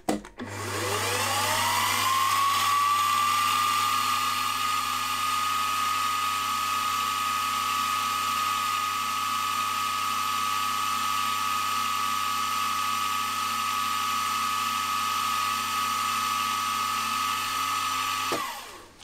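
Milling machine spindle motor spinning up over about two seconds to a steady high whine while a number 43 drill bit drills into a small metal part, then winding down near the end.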